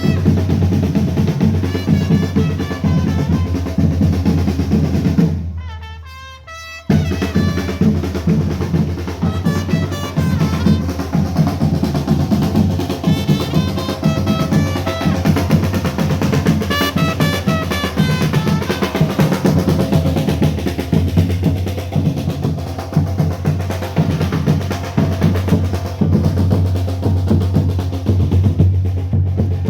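Parade marching band playing: snare and bass drums with rolls, and a melody of short notes over them. The music fades down about five seconds in and cuts back in abruptly a second later.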